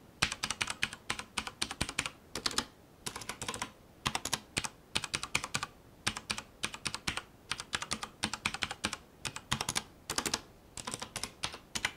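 Typing on a CM Storm Quickfire TK mechanical keyboard with Cherry MX Brown switches: quick runs of key clicks in bursts with short pauses between them. The keys are not loud for a mechanical keyboard.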